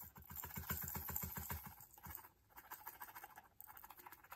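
Small plastic resin diamond-painting drills sliding and rattling across a plastic sorting tray and pouring off its spout into a small bag. They make a dense patter of tiny clicks that thins out after about two seconds.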